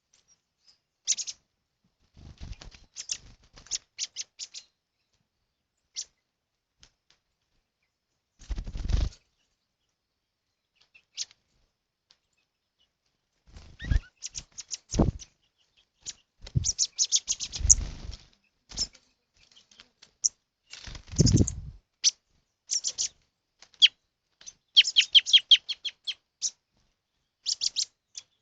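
Small wild birds chirping in quick series of short, high notes, with several bursts of wing flapping in between.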